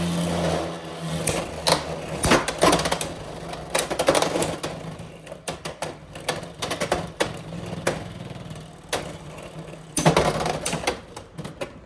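Beyblade X spinning tops, Black Shell and Wizard Rod, battling in a plastic stadium: irregular sharp clacks as they strike each other and the walls, over a steady whir. A cluster of loud hits comes about ten seconds in.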